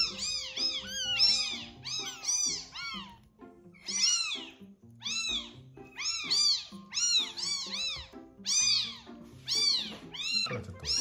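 Week-old kitten screaming in loud, high-pitched cries, one after another about one or two a second with a short lull partway through, while being syringe-fed milk: frantic hunger cries from a kitten too eager to drink calmly.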